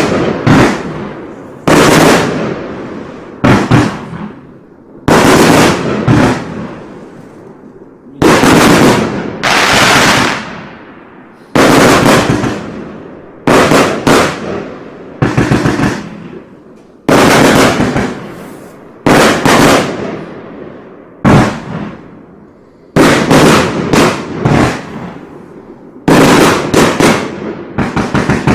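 Gemstone Fireworks 'Euphoria' consumer firework going off, shot after shot: each a loud bang followed by a crackling tail that fades within about a second, with a new bang, often two in quick succession, every second or two.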